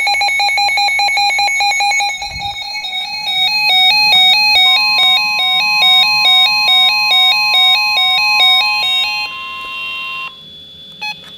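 Electronic alarm tones of an Emergency Alert System flash flood warning, loud. A rapidly pulsing tone lasts about two seconds. Then comes a warbling two-pitch tone switching between high and low about three times a second, joined by a steady higher tone, and the tones stop about ten seconds in.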